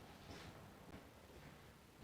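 Near silence: room tone with a few faint light taps.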